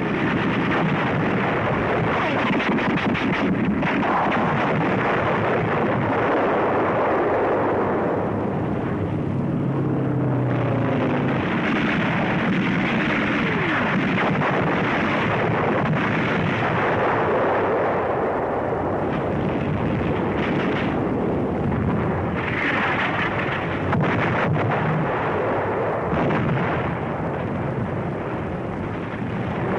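Continuous din of battle: artillery fire and gunfire with explosions, running on steadily without a break.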